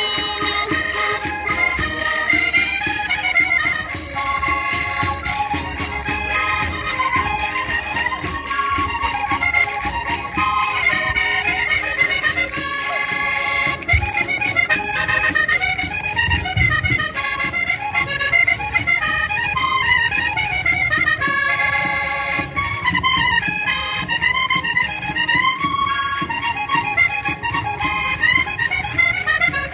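Portuguese rancho folk dance music: an accordion plays a lively tune whose melody rises and falls in repeated phrases over a steady beat.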